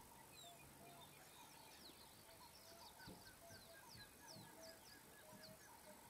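Faint chorus of wild birds calling: runs of short repeated notes and quick, high, falling whistles, with a soft thump about three seconds in.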